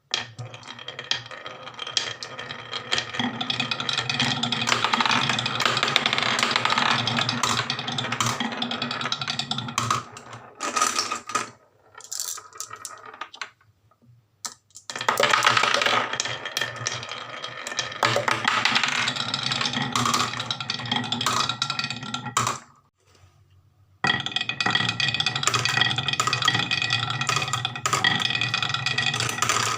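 Small toy vehicles and marbles rolling and clattering down a wooden marble run track in three separate runs, each a long, dense rattle that stops before the next begins.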